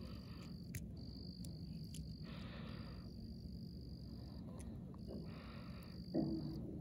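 A calling animal's high, steady trill, repeated in stretches of about one to one and a half seconds with short gaps between. A few faint clicks sound over it as the fishing line and lure are handled.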